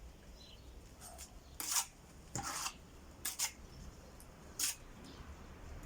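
A few short scraping and clicking noises from hand work on brick and metal, about five in all, the loudest a little under two seconds in.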